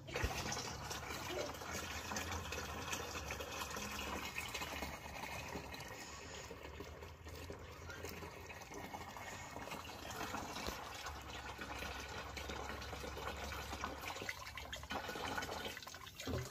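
Water streaming from the end of a small green plastic hose and splashing into a tank of standing water, a steady flow.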